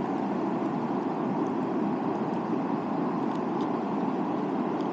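Steady rush of fast-flowing river water from the Snake River running high.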